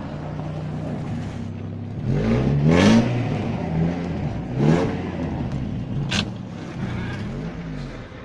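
Car engine running in snow, revving up a few times so its pitch rises and falls, with a few sharp clicks in between.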